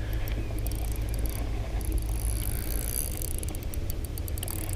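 A steady low rumble, with faint, fast ticking from a spinning reel being cranked as a hooked bass is reeled in on light line.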